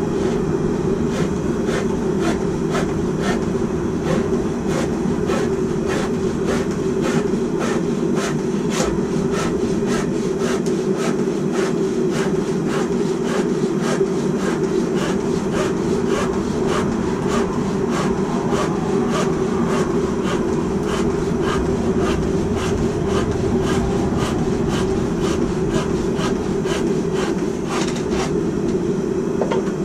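Hand saw cutting wood in quick, even strokes, which stop near the end, over a steady low roar.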